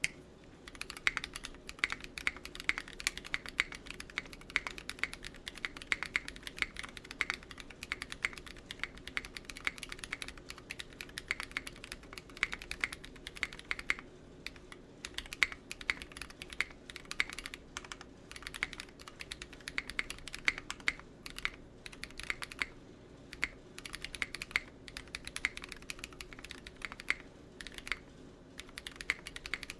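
Typing on a Mekanisk Klippe 60% mechanical keyboard with tactile Holy Panda switches and GMK keycaps: a continuous run of keystroke clacks, with a short pause about fourteen seconds in.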